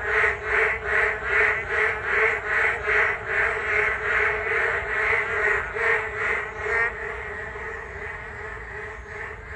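A chorus of many frogs calling, a loud rhythmic croaking of about two to three pulses a second over a steady lower drone of other frogs. The loud pulsing stops about seven seconds in, leaving the softer continuous chorus.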